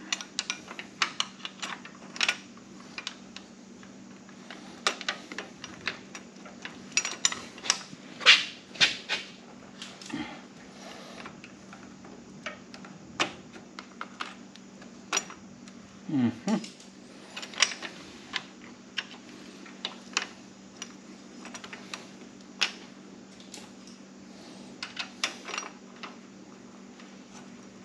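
Irregular clicks and taps of hand tools and metal bolts against a motorcycle's frame as parts are fitted back together and snugged up, over a steady low hum.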